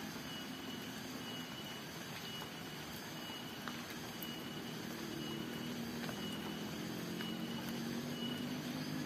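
A low engine hum, like a distant motor vehicle, that grows louder in the second half, over steady outdoor background noise. A faint, high chirp repeats about once a second.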